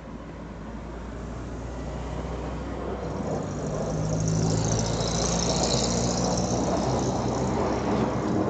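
Jet fighter flying overhead, its engine roar growing steadily louder as it approaches, with a high hiss joining in about three seconds in.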